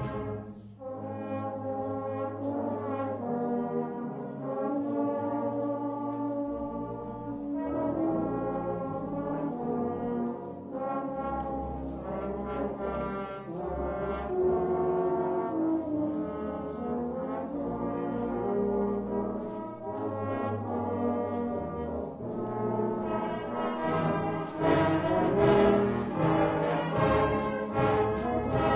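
Brass band of trombones, euphoniums, tubas and cornets playing a tune in held chords, with sharp regular beats joining in near the end.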